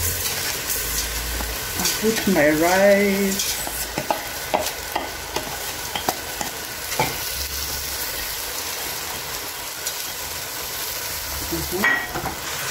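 Dry rice poured into a stainless steel pot of simmering beef and tomato pilau base, then stirred in with a wooden spoon: a steady sizzle, with scattered light knocks of the spoon in the pot. A brief wavering tone sounds about two seconds in.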